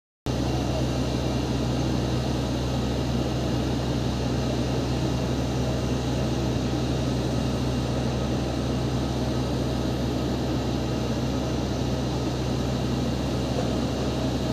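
Boeing 737's jet engines running steadily at low thrust: a constant hum and whine with no rise in pitch, short of takeoff power.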